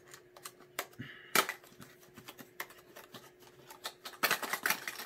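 Irregular clicks and taps of hard plastic as fishing lures and small plastic tackle boxes are handled, the sharpest about a second and a half in and a quick cluster of clicks near the end.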